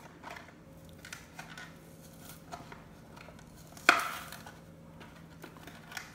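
Plastic blister pack being peeled and torn away from a Hot Wheels cardboard card: faint crinkling, scraping and small clicks, with one sharp, loud snap about four seconds in.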